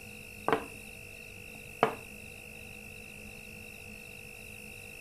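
Two sharp clinks of crockery being set down in a kitchen, about a second and a half apart, each with a short ring, over a steady low hum.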